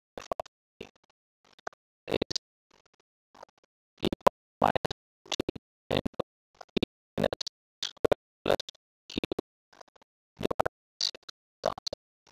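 Pen or stylus scratching and tapping on a writing surface in short, irregular strokes while handwritten equations are written out.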